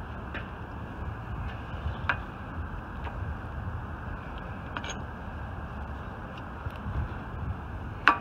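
Steady workshop background hum and hiss with a few light clicks of hand tools being handled, and one sharper click near the end.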